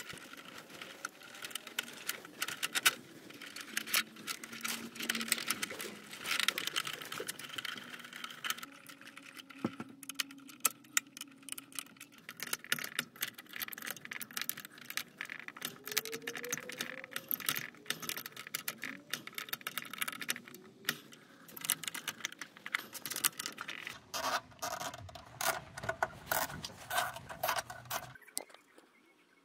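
Stiff insulated wires being handled inside a metal electrical panel: a dense, irregular run of rustles, clicks, taps and scratches as the wires are bent and knock against the cabinet and the plastic breakers.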